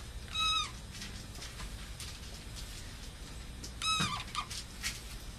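Dry-erase marker squeaking on a small whiteboard as lines are drawn, two short high squeaks with faint scratchy strokes between them.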